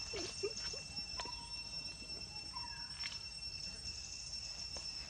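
Steady, high-pitched insect drone, with a few short squeaks in the first half second and brief faint chirps later on.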